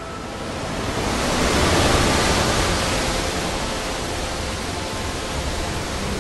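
Rushing roar of a waterfall, a steady wash of noise that swells over the first two seconds and then holds.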